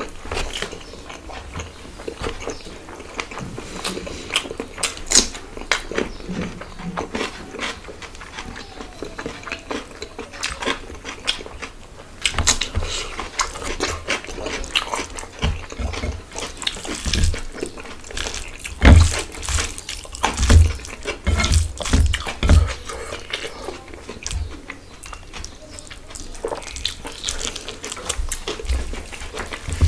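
Close-miked eating sounds: wet smacking and chewing of mouthfuls of khichuri eaten by hand, with fingers squishing and mixing the rice on the plate. There are many short wet clicks throughout, and dull thumps come in clusters about halfway through.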